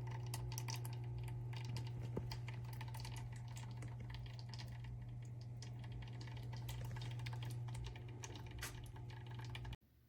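Bumilgar spiral water fountain running: a dense patter of splashing, splattering water droplets over a steady low hum, cutting off suddenly near the end.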